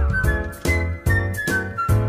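Upbeat background music with a steady beat and a high melody line.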